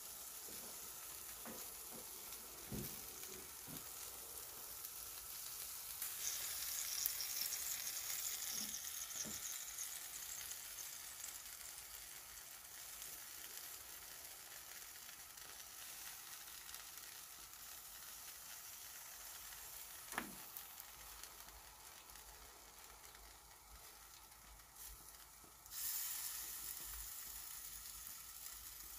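A whole fish in a wire grill basket, with corn, tomatoes and onions, sizzling faintly on the hot grates of a barbecue grill, a steady hiss with an occasional small pop. The sizzle swells a few seconds in and again near the end.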